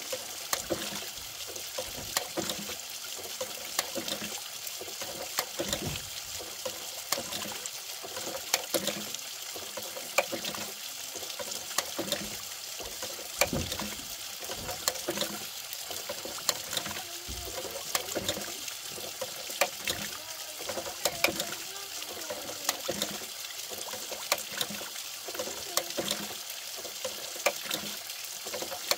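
Water from a hose splashing steadily onto a bamboo water-driven contraption and pouring into a concrete tank, with frequent short clicks and splashes throughout.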